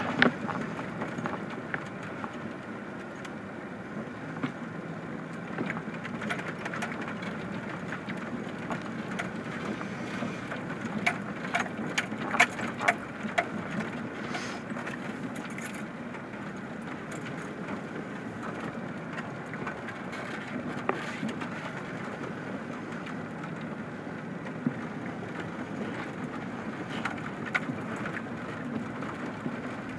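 Vehicle driving slowly over a gravel road, heard from inside the cab: steady road and engine noise with scattered sharp clicks of stones under the tyres, bunched in a run of clicks around the middle.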